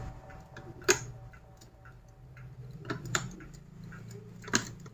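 Plastic magnetic building sticks and balls clicking and snapping together as they are fitted and adjusted at the top of a toy tower. There are a few sharp clicks, the loudest about a second in and near the end, with lighter ticks between.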